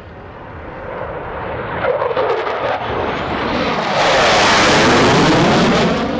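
F-16 Fighting Falcon jet making a low pass, its engine roar building steadily as it approaches, loudest as it passes overhead about four seconds in, then easing as it heads away. A faint high whine rises just before the peak.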